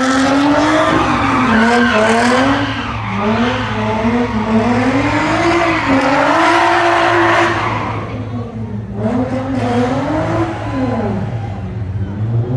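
A car engine revs up and down over and over while the tires screech and skid on the pavement, the sound of a car spinning donuts in its own tire smoke. It gets quieter about eight seconds in.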